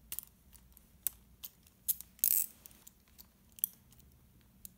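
Plastic wedges of a Rubik's Snake clicking as they are twisted and turned into place: a string of sharp, irregular clicks, with a longer rasping click a little after two seconds in.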